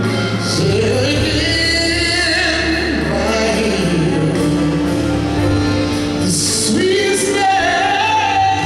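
Male gospel singer singing live into a handheld microphone, sliding through runs and holding one long note midway, over a steady low instrumental backing.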